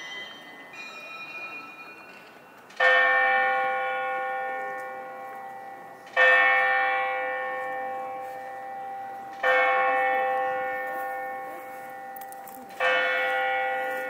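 Great Lavra Bell Tower's big bell striking the hour: four heavy strokes a little over three seconds apart, each one ringing on and slowly fading. Before the first stroke, a chime of smaller, higher bells dies away.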